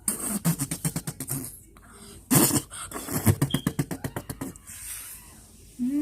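Kids' non-speech vocal noises in rapid, choppy bursts, several a second, with a loud blast of breathy noise about two seconds in.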